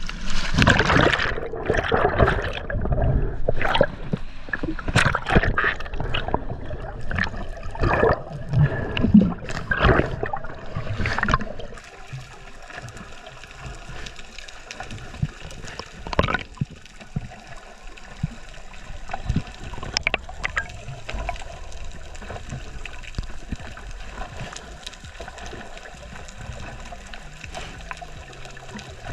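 Water splashing and gurgling close to the camera as a diver goes over the side of a boat into the sea. About twelve seconds in it settles into a steady, muffled underwater hiss with a few faint clicks.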